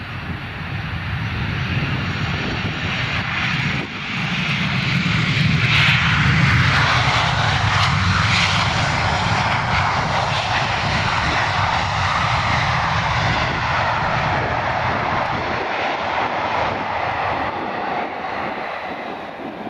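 Boeing Business Jet (737-700) jet engines running loudly on the runway. The noise grows to its loudest about six seconds in and then holds fairly steady.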